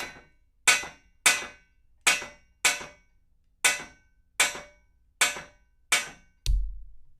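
A hammer striking a metal pipe about eight times at an uneven pace, each hit a sharp clang that rings briefly and fades. The last impact, near the end, is a duller thump.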